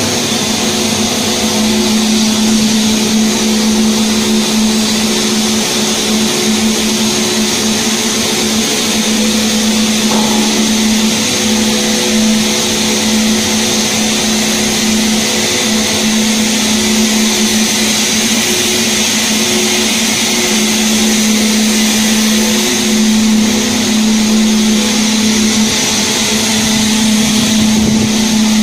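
Automatic-loading CNC router and its dust-extraction system running: a steady machine hum with a constant tone and a hiss above it.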